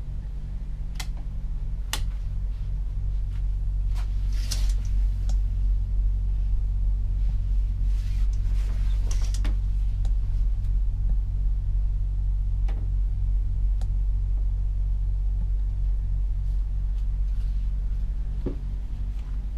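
Steady low hum and rumble of a cruise ship's machinery and ventilation heard inside a cabin, with a few light clicks and knocks scattered through it.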